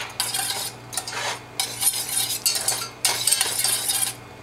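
Wire whisk scraping and rattling against the sides and bottom of a stainless steel saucepan while whisking a thin butter, cornstarch and milk sauce, in a run of quick uneven strokes that stops shortly before the end.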